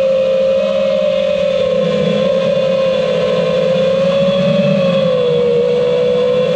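iFlight TITAN DC5 five-inch FPV quadcopter's brushless motors and propellers whining steadily in cruise, the pitch drifting slightly up and down as the throttle changes.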